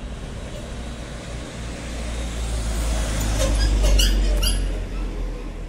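A motor vehicle passing close by on a street: a low engine and road rumble that swells to a peak about four seconds in and then fades, with a few short sharp sounds near the loudest point.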